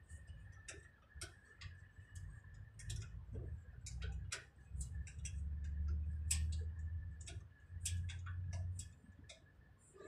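Sharp, irregular metallic clicks of a wrench working on the air-line fittings of a trailer brake relay valve as they are tightened. Under them a low rumble swells in the middle and fades near the end.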